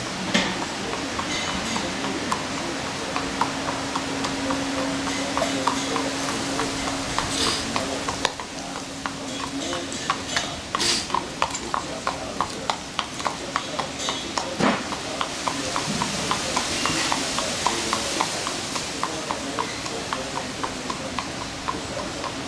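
Horse walking on asphalt, its hooves clip-clopping in an even run of strikes, a few a second.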